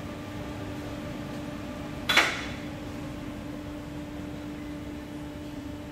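Steady even hum with one sharp clink about two seconds in that rings out briefly.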